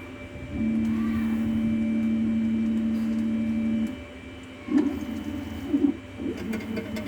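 Stepper motors of a homemade CNC machine jogging an axis: a steady motor whine for about three seconds, then a string of short stop-start moves near the end as the tool is nudged to the origin corner.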